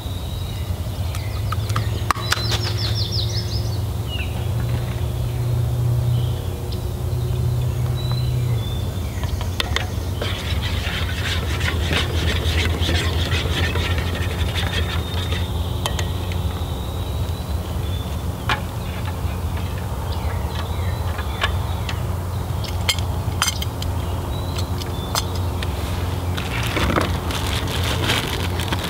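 Eggs cooking in butter in a small carbon steel pan over an alcohol stove, sizzling while a spatula scrapes and taps the pan with many short strokes, most busily in the middle and near the end.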